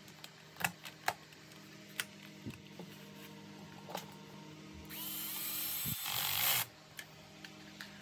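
A few sharp clicks, then an electric screwdriver runs for about a second and a half, its whine rising slightly as it drives a screw home.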